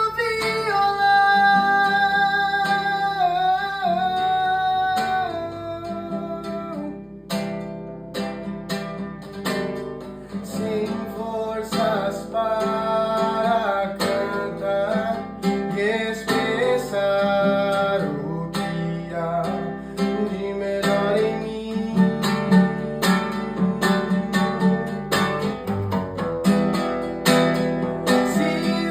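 Acoustic guitar playing the hymn's melody instrumentally, plucked single-note lines over chords.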